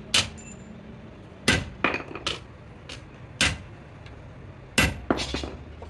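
Hammer blows on metal, about nine sharp, irregularly spaced strikes, some coming in quick pairs, during work on a truck clutch plate.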